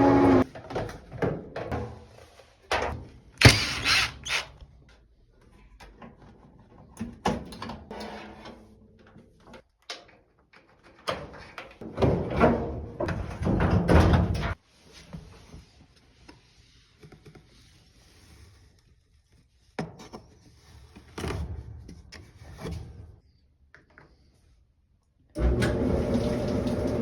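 Irregular thunks, knocks and clicks, the loudest a sharp knock a few seconds in; near the end a Samsung clothes dryer starts up abruptly and runs with a steady hum.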